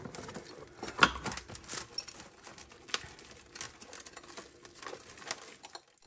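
Arabesque mosaic tiles being handled and set down on a granite countertop: irregular small clicks and rustling, the sharpest click about a second in.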